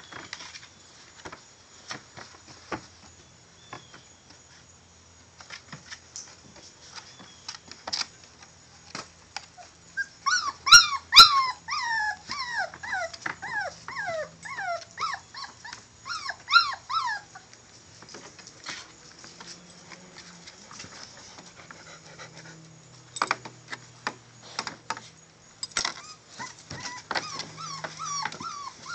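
Young Catahoula bulldog puppies whimpering and yelping. From about ten to seventeen seconds in comes a string of short squeals, each falling in pitch, with more whimpers near the end. Two sharp knocks sound among the first whimpers, and soft clicks and rustles fill the quieter stretches.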